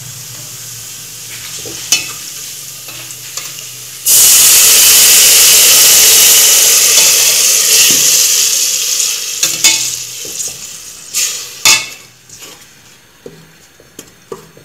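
Oil in a pot quietly frying browned garlic, with a spoon clicking against the pot. About four seconds in, ground ají amarillo (Peruvian yellow chili) paste goes into the hot oil and sets off a sudden loud sizzle. The sizzle dies away over several seconds as the paste is stirred, with a few spoon knocks against the pot.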